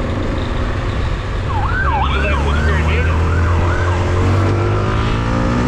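A siren sounding in about six quick rise-and-fall sweeps for a couple of seconds, over a patrol motorcycle's engine running on the move, which picks up revs near the end.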